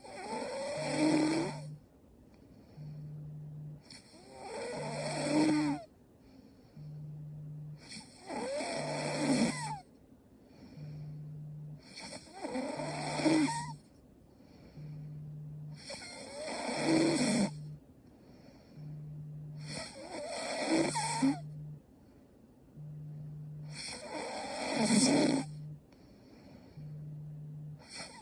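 A young woman snoring in her sleep, with a loud rasping snore about every four seconds and quieter breathing between them.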